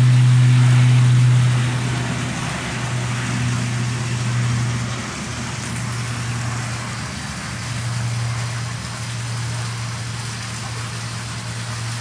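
Twin-engine airtanker's engines and propellers droning as it rolls along the runway: a steady low hum with a rushing noise, loud at first, then dropping away after about a second and a half and wavering at a lower level as the aircraft draws away.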